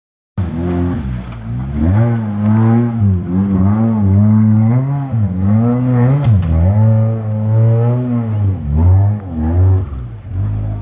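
Suzuki Gypsy 4x4's petrol engine revving hard off-road, its pitch rising and falling again and again as the throttle is worked.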